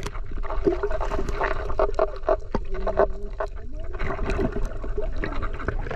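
Water heard through a camera held underwater: muffled sloshing and gurgling with scattered clicks and knocks, over a steady low hum.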